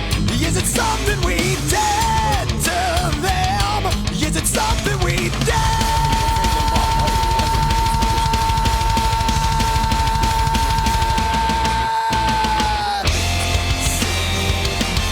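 Background rock music with distorted guitar and a drum kit. A long high note is held from about five seconds in until near the end.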